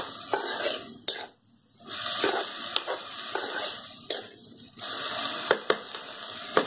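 Metal spoon stirring and scraping through leafy vegetables in an iron kadai, with a light sizzle of the oil. The stirring stops briefly about a second and a half in, and a few sharp clinks of the spoon on the pan come near the end.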